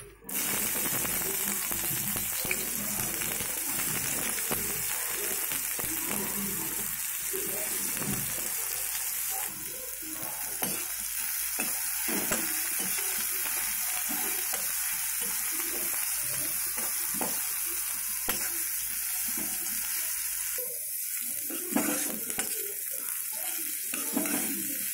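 Chopped red onions frying in hot oil in a kadai, a steady sizzle that starts suddenly just after the start, with a metal spatula scraping and stirring them around the pan throughout.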